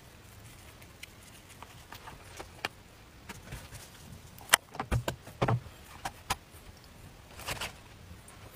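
Scattered light taps and clicks from handling a small electric crepe pan and a plate as thin egg crepes are lifted off and laid down, with a cluster of louder knocks about five seconds in.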